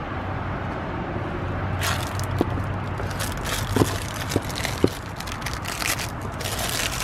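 Crackling and scraping of oil filter parts being handled by hand, with a few sharp clicks in the middle, over a steady low hum. The crackling starts about two seconds in.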